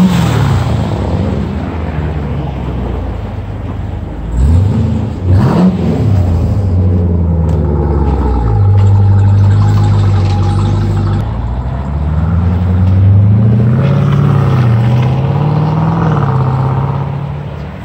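2018 Jeep Grand Cherokee Trackhawk's supercharged 6.2-litre V8 blipped hard at the start and twice more about five seconds in, each rev rising and falling quickly. It then runs steadily and pulls away, the exhaust note rising and falling in pitch before fading near the end.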